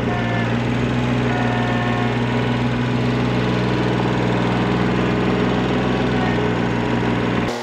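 Kubota B6100's three-cylinder diesel engine running steadily while the tractor's front loader lifts and dumps a bucket of dirt. The sound cuts off abruptly just before the end.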